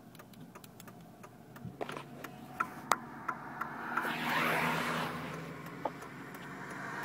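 Inside the cabin of a Chevy Tahoe creeping along at low speed, pushing a stalled pickup: a faint low engine hum with scattered light clicks and rattles, and a rush of noise that swells about four seconds in and fades again.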